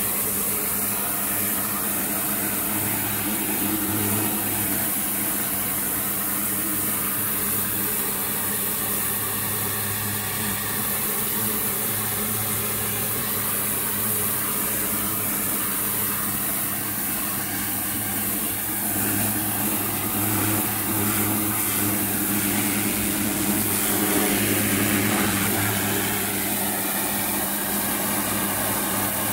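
High-pressure washer running steadily: the pump's hum under the hiss of the water jet from a rotating turbo nozzle spraying brickwork. It grows a little louder for a few seconds about twenty seconds in.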